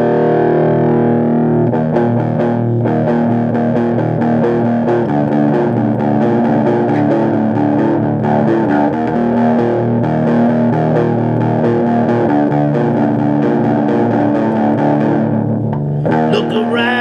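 Distorted electric guitar playing a heavy metal riff, the song's instrumental intro before the vocals come in.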